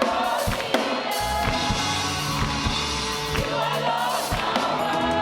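Live gospel worship band playing an upbeat praise song, with drums keeping a steady beat under keys and bass, and the vocalists singing.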